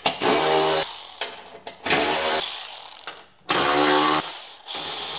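Milwaukee cordless electric ratchet with a 3/8 socket running in three short bursts of motor whine, backing out the bolts that hold a lawn tractor mower deck's pulley cover.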